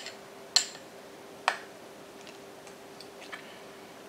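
A metal fork clicking sharply three times in the first second and a half while eating, then a couple of faint ticks later on, over a faint steady hum.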